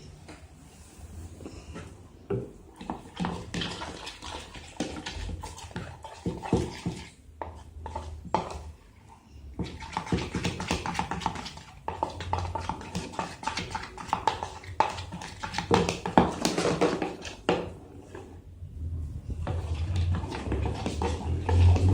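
Homemade slime (glue, paint, moisturiser and boric-acid water) being stirred in a bowl, a dense run of small irregular clicks and scraping that pauses briefly about halfway through and again near the end.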